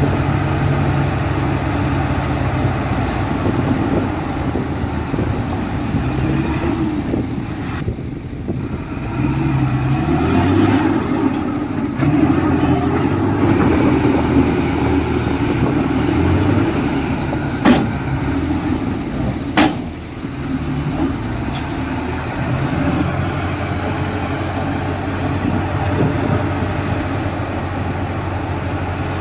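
Heavy diesel machinery running steadily, its engine note shifting up and down for a while in the middle, with two sharp knocks about two seconds apart a little past the middle.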